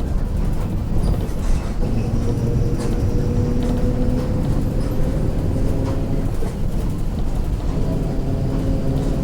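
Mercedes-Benz OF 1721 diesel bus under way, a steady low rumble with scattered faint clicks. A whining tone from the growling differential joins about two seconds in, rises slightly, fades past the middle and returns near the end.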